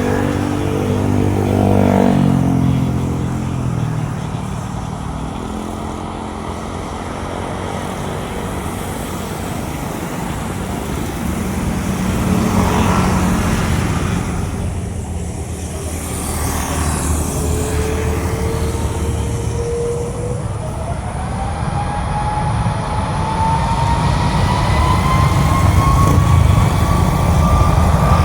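Jet airliner engines spooling up for takeoff: a whine that rises steadily in pitch from about two-thirds of the way through, over a steady low rumble that grows louder. In the first few seconds a passing road vehicle's engine drops in pitch.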